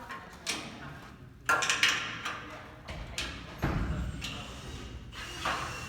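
A series of irregular knocks and clanks from obstacle equipment being installed, the loudest pair about one and a half seconds in, with scattered voices in the background.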